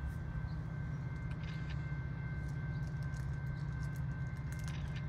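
Distant CN SD75I diesel locomotive approaching, its EMD 16-cylinder engine heard as a steady low drone, with faint scattered clicks over it.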